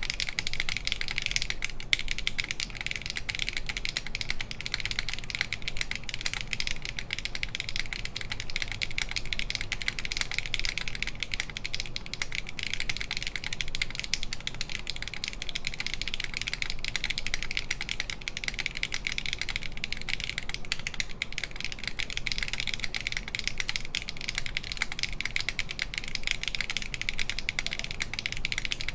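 Continuous fast typing on a mechanical keyboard, a SINGAKBD Kohaku with an aluminium full plate, stock HMX Hyacinth V2U switches and GMK keycaps: a dense, unbroken run of keystroke clacks.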